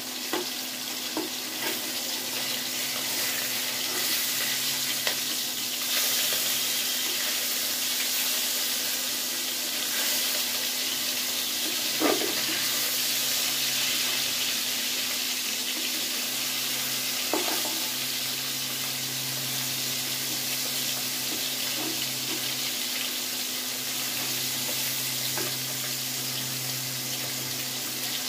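Fish steaks sizzling steadily as they shallow-fry in mustard oil in a karahi, with a few sharp clacks of a metal spatula against the pan as the pieces are turned. A steady low hum runs underneath.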